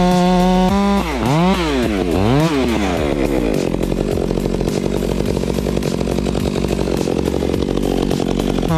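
Stihl chainsaw engine running at high revs, throttled up and down a few times about a second in, then running rough and uneven for several seconds, as under load in a cut.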